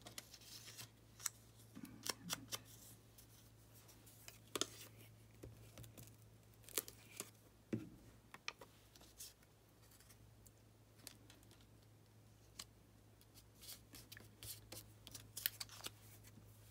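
Quiet handling sounds: scattered light clicks and ticks as paper pieces and a glue bottle are picked up and set down on the table, over a low steady hum.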